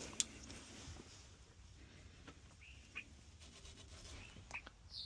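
Faint chirps of a bird: a few short high calls, the clearest one near the end, with a few light clicks alongside.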